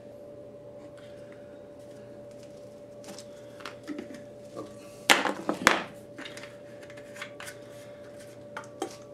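Workbench handling noises: scattered light clicks and knocks as a brake fluid bottle is capped and parts are handled, with a louder clatter about five seconds in, over a faint steady hum.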